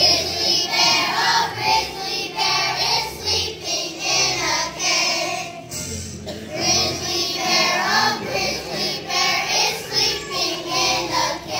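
A large choir of young children singing together, the song starting suddenly at the opening and going on in phrases.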